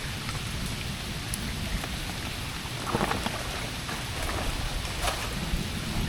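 Heavy rain falling steadily, with scattered close drops striking and a cluster of louder hits about three seconds in, over a low rumble.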